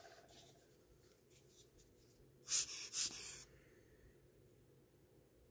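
Two short, hissy puffs of air close to the microphone about two and a half seconds in, against faint small clicks of a wristwatch being handled.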